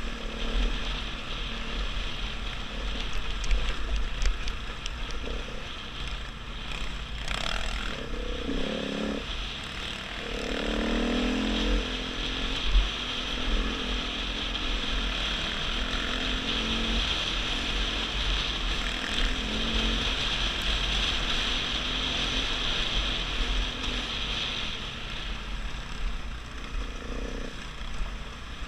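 A KTM 500 EXC dirt bike's single-cylinder four-stroke engine running under way on a gravel track, its revs rising and falling between about 8 and 12 seconds in. A low wind rumble sits on the microphone throughout.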